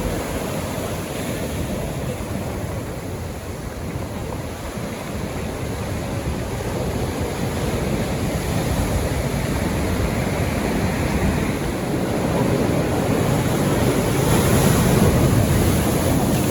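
Sea surf breaking and washing on the shore, a steady rush that swells louder near the end.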